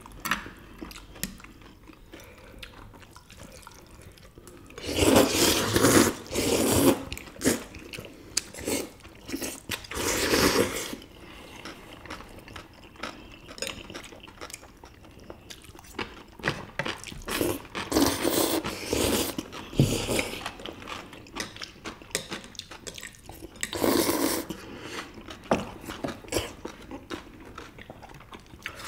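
Close-up eating of spicy bibim noodles and steamed dumplings: chewing and wet mouth sounds with many small clicks. Several louder, longer noisy bursts come about five, ten, eighteen and twenty-four seconds in.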